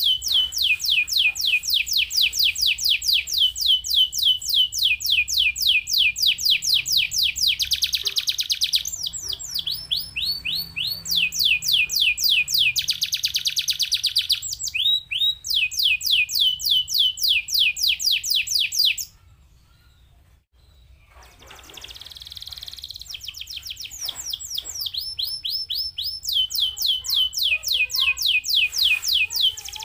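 Domestic canary singing: fast runs of repeated falling whistled notes alternating with rolling trills, a brief pause about two-thirds of the way through, then the song picks up again.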